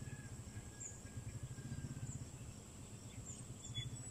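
Faint outdoor ambience: a fluttering low rumble with a thin steady high-pitched whine, and a faint level whistle in the first two seconds.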